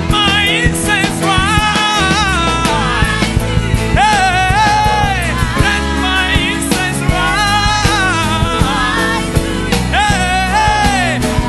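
Live gospel worship band playing with a lead singer's voice gliding through long, bending vocal runs over drums and bass.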